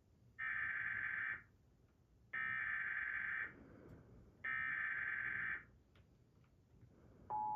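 Three Emergency Alert System SAME header data bursts from a DASDEC II encoder/decoder, each a buzzy digital warble lasting about a second. Near the end the steady two-tone EAS attention signal starts.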